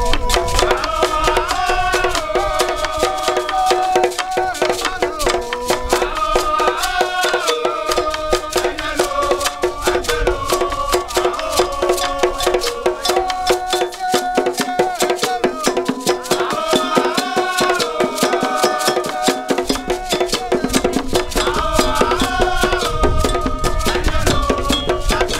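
Ewe Agbekor war-dance music: a group of men singing together over a fast, steady iron-bell (gankogui) pattern, rattles and carved barrel drums. The deepest drum drops out for a few seconds midway while the bell and singing carry on.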